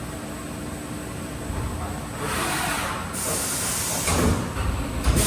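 Haas VF-4SS vertical machining center running, with a steady hum and a held tone that stops about two seconds in. Then come repeated bursts of loud hissing and a couple of low thumps between cycles of the demo program.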